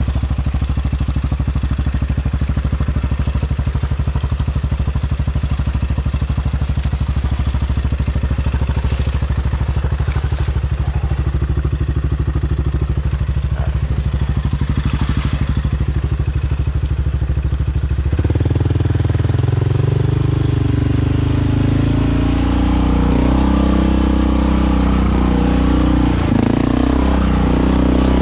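ATV engine running at a steady, even speed, then revving up and down with changing pitch about two-thirds of the way through as it gets on the throttle.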